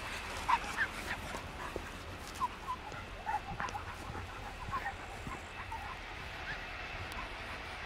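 A dog whimpering and yipping in short, high whines, coming in a quick string that thins out about five seconds in.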